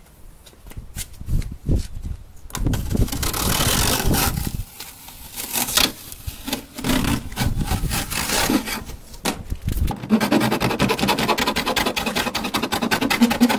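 Tape being peeled off a plastic fender flare: irregular ripping and rubbing strips. From about ten seconds in, a fast, even rasping rattle takes over.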